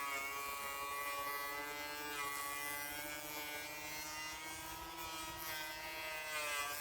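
Ryobi P611 18V cordless 3¼-inch power planer running, its motor and cutter head giving a steady high whine with a hiss while it planes laminated 2x4 pine. The pitch sags a little midway and picks up again near the end.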